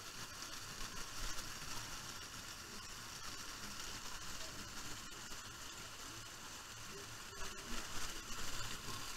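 Water from a water-play structure's pipes and sprays falling and splashing, a steady hiss with a few louder splashes near the end.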